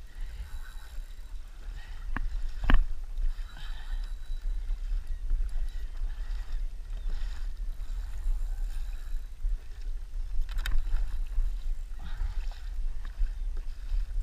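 Sea water sloshing and splashing against a kayak's hull in soft, irregular swishes, over a steady low rumble of wind on the microphone. A sharp knock on the hull about three seconds in, with lighter clicks just before it and again near the end.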